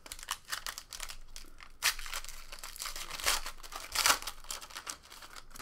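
Foil wrapper of a 2015 Panini Select Soccer trading-card pack crinkling as it is torn open by hand, with two louder crackles, about two seconds in and about four seconds in.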